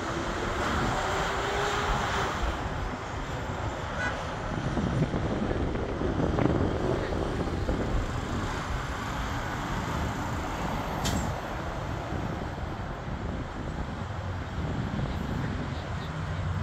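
Steady broad noise of a business jet's engines as it takes off and climbs away, mixed with nearby road traffic.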